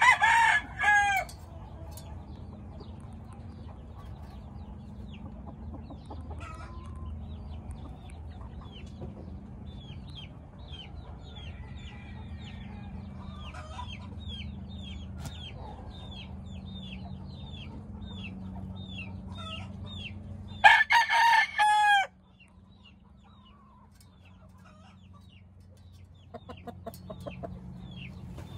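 Gamecock crowing twice, a loud call about a second long at the very start and another about 21 seconds in. Between them, a steady low hum with a run of short repeated chirps midway; the hum cuts out after the second crow.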